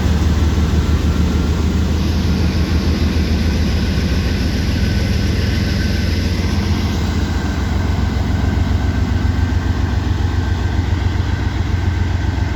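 Union Pacific freight train rolling past at speed: a loud, steady low rumble.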